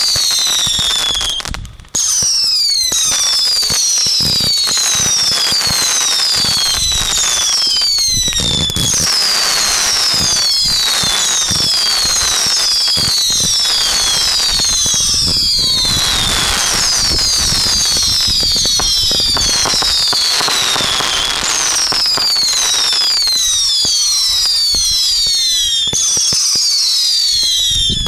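A fireworks barrage going off non-stop: a rapid run of shrill whistles, each falling in pitch and overlapping the next, over dense crackling and pops, with a short break about two seconds in.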